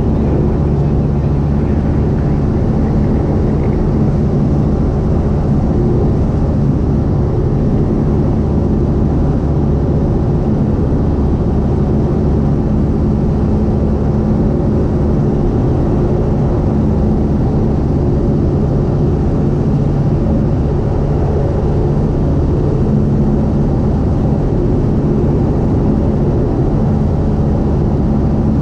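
Single-engine light aircraft's piston engine and propeller droning steadily, heard inside the cockpit.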